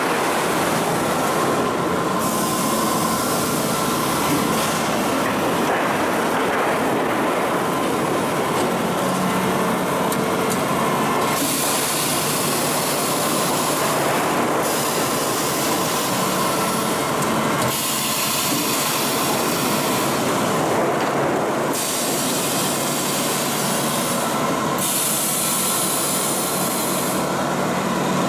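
A cut-to-length and slitting machine running steadily as it feeds colour-coated steel sheet through its rollers: a continuous mechanical rumble and rattle with a faint steady tone. The hiss above it shifts every few seconds.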